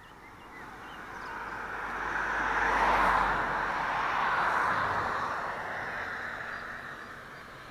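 A vehicle passing by: a rushing noise that swells to a peak about three seconds in and then fades away.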